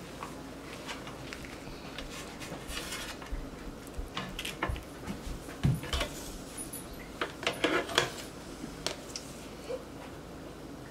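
Kitchen utensils clattering: a plastic spatula and batter squeeze bottles knocking against an electric griddle and countertop, in scattered clicks with a few louder knocks around the middle.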